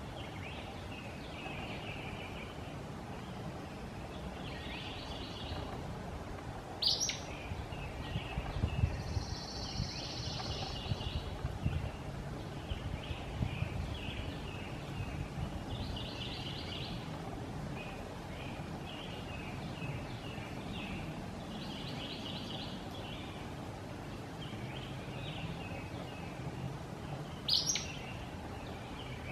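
Acadian flycatcher giving its sharp, explosive call twice, about twenty seconds apart, each a very quick upward sweep. Softer bird chirps and trills run between the calls over a steady low background rumble.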